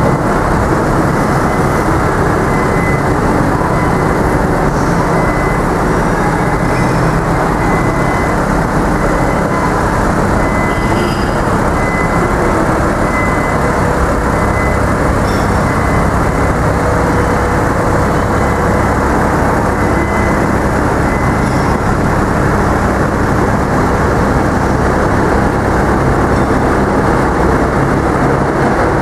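Engine of a truck-mounted aerial work platform running steadily with the boom raised. A thin high tone pulses on and off for much of the time.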